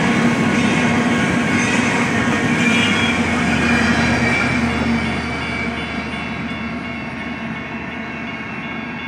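Empty intermodal well cars of a BNSF freight train rolling past, their wheels running on the rails in a steady clatter. The sound fades after about five seconds as the end of the train passes and draws away.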